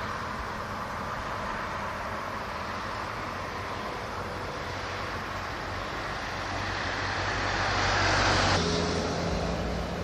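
Road vehicle noise: a steady rushing hum that swells to a peak about eight seconds in, as if a vehicle passes close by, then cuts off abruptly into a quieter, steadier hum.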